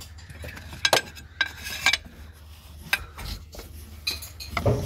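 Irregular metallic clinks and scrapes as a long steel socket extension is worked down behind the engine, knocking against metal parts in the engine bay.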